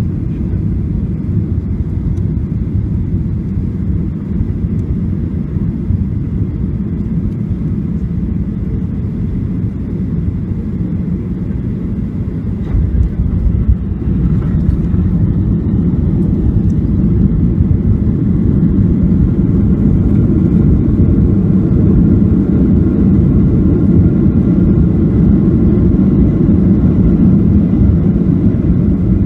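Cabin sound of a Boeing 737 landing: a steady low rumble of jet engines and airflow on final approach, touchdown about 13 seconds in, then a louder rumble as the jet rolls out and slows on the runway with its spoilers raised.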